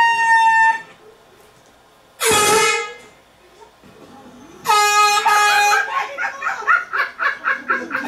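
Handheld canned air horn blasted once, a loud blaring note lasting under a second, about two seconds in. A second air-horn blast with a brief break in it comes near the middle, followed by quick chattering voices.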